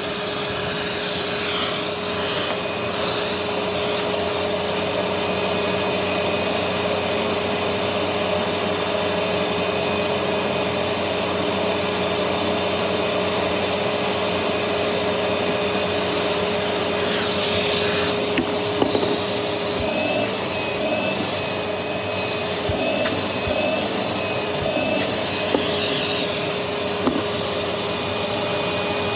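Vacuum cleaner running steadily with a constant motor whine, suction going through the hose with the dusting brush attachment. The pitch and texture shift briefly a few times in the second half.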